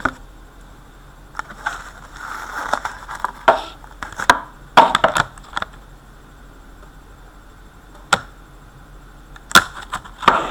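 Trading-card packaging being handled and opened: foil wrapper and cards crinkling and rustling, with a scatter of sharp taps and clicks.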